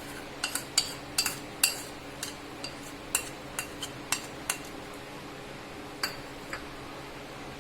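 A metal utensil clinking against a frying pan, about a dozen irregular sharp clinks that thin out after about four and a half seconds, as grated ginger is added to the pan.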